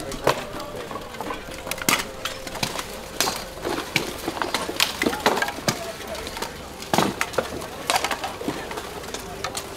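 Buhurt melee: irregular knocks and clanks of steel weapons striking plate armour and wooden shields, a few sharp hits standing out about two, seven and eight seconds in.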